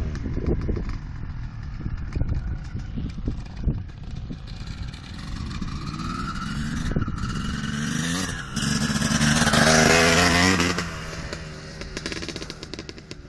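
Small dirt bike's engine running and revving up and down as the bike rides along, growing louder as it approaches, loudest about ten seconds in, then dropping off.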